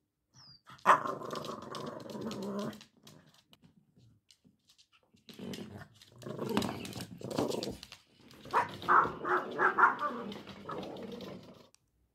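Cavalier King Charles spaniel growling in drawn-out bouts while playing with a motion-activated moving toy ball, with a quick run of short barks past the middle.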